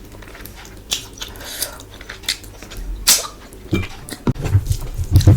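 Close-miked eating: wet mouth clicks and smacks, then from about four seconds in a quick run of loud, low chewing thumps.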